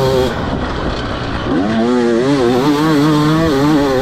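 2024 KTM 300 XC-W's 300 cc two-stroke single-cylinder engine through an Akrapovic slip-on exhaust, ridden off-road. It drops off briefly just after the start as the throttle is closed, then comes back on about a second and a half in, its pitch rising and falling repeatedly with the throttle.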